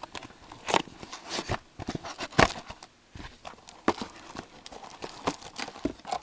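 A cardboard hobby box and its trading-card packs being handled: irregular taps, clicks and knocks, the loudest about two and a half seconds in.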